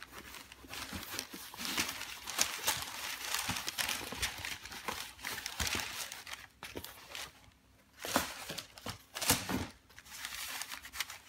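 Rustling and crinkling of packing paper and a cotton dust bag as they are handled and folded back, with small sharp crackles throughout. There is a brief lull about two-thirds of the way through.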